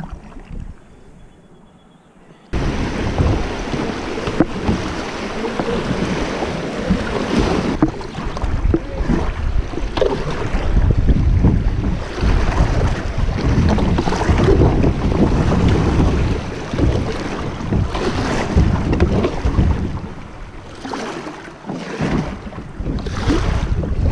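Water rushing through a shallow creek riffle around a kayak, with wind buffeting the microphone. It starts abruptly a few seconds in after a quiet moment, and its loudness surges and drops unevenly.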